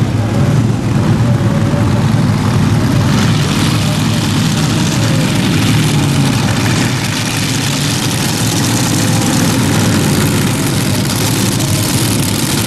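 Multi-engine modified pulling tractor running at low revs as it rolls slowly, a loud, rough, steady engine sound.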